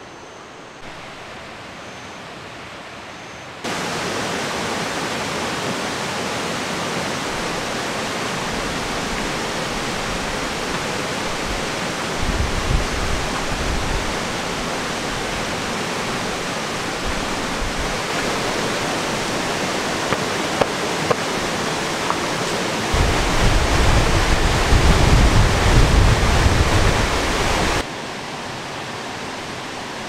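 Valley stream rushing: a steady wash of running water that steps up abruptly about four seconds in and drops back near the end, with low rumbles twice in between.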